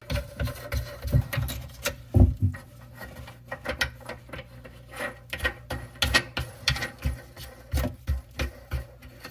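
Faucet mounting nut being threaded and hand-tightened onto the faucet shank from under the sink: irregular small clicks and scrapes, a few a second, over a steady low hum.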